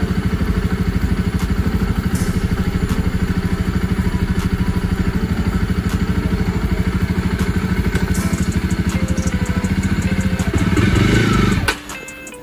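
Jawa motorcycle engine idling with a steady, even beat. It swells louder briefly near the end, then drops away sharply.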